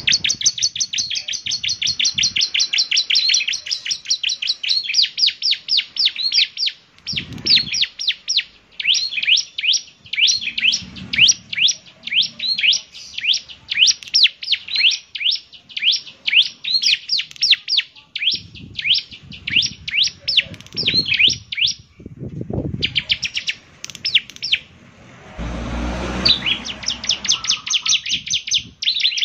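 Bar-winged prinia (ciblek) singing: a long, rapid run of sharp, high chirps, several a second, with two brief breaks. A short low rumble comes about three-quarters through.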